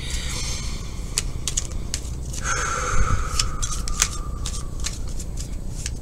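Tarot cards being handled and laid out on a table: a string of light clicks and scrapes, with a soft thump about three seconds in and a faint, high falling whine midway.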